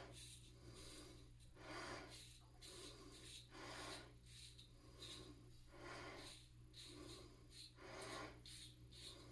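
Faint, repeated short scraping strokes, about one a second, of a GEM blade in a light 3D-printed safety razor cutting lathered stubble against the grain, with heavy breathing mixed in.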